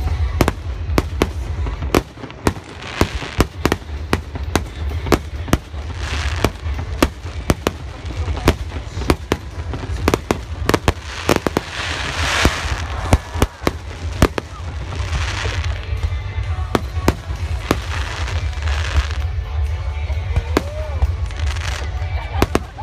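Aerial fireworks bursting in a rapid series of sharp bangs, several a second. Crackling swells come in among them every few seconds, over a steady low rumble.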